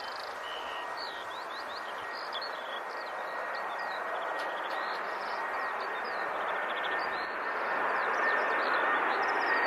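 Boeing 767-300 freighter's jet engines on final approach: a steady rushing roar with a thin steady whine, slowly growing louder as the aircraft nears. Birds chirp throughout.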